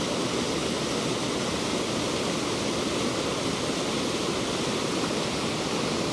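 Fast-flowing creek water pouring down a rocky cascade in a steady rush.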